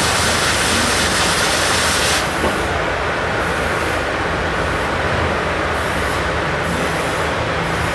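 Arc welding on a steel base column: a steady hiss of the arc over a low hum. From about two seconds in, the high hiss drops out briefly several times while the hum carries on.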